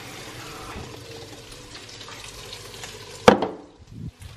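Hot water running from a kitchen tap into a soup pot, a steady rush that stops abruptly with a sharp clunk about three seconds in.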